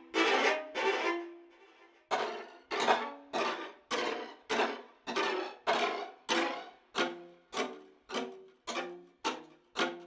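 Sampled solo violas (8Dio CASE Strings viola pulses) playing repeated short bowed pulse strokes, about two a second and a little faster near the end. There is a brief gap about a second and a half in.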